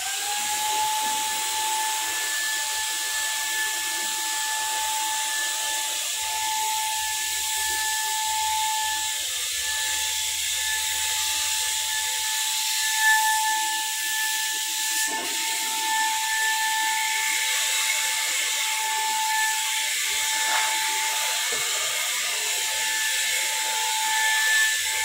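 Electric paint spray gun switched on and running: its motor whine rises in pitch over the first second as it spins up, then holds steady over a loud hiss of air and paint spray.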